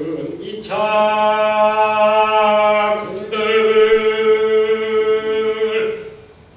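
Korean Buddhist chanting: two long held, steady-pitched sung notes of about two and a half seconds each, with a short break between them, fading out near the end.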